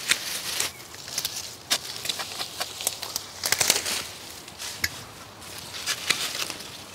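Hand pruning shears snipping through the branches of a spice bush: a series of sharp, irregularly spaced snips and clicks, with leaves rustling as the branches are handled and cut back.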